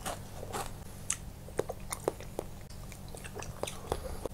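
Crisp waffle being bitten and chewed close to the microphone: irregular crunches and small crackles, several a second.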